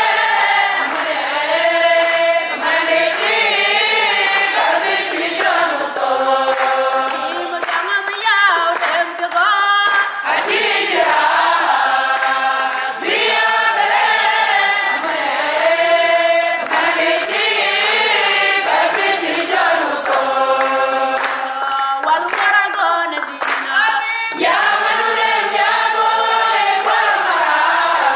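A group of women singing a worship song together in sustained, flowing phrases, with no instrumental accompaniment.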